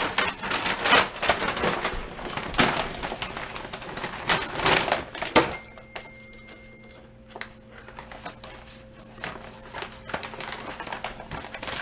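Objects being handled and knocked about: a quick run of clicks, knocks and clatters. About five and a half seconds in they stop, leaving a quieter stretch with a steady low hum and a few light clicks.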